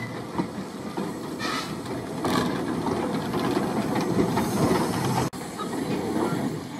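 George England 0-4-0 saddle-tank steam locomotive Prince (Ffestiniog Railway No 2) moving slowly past, hissing steam, with two louder steam bursts about one and a half and two and a half seconds in.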